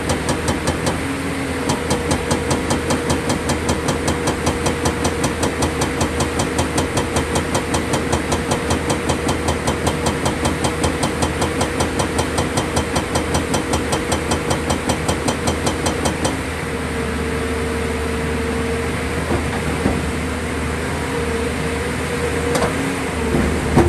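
Hydraulic rock breaker on a JCB tracked excavator hammering rock in a fast, even rhythm of several blows a second, over the machine's diesel engine. About two-thirds of the way through the hammering stops, leaving the engine running with a steady hum and a couple of single knocks near the end.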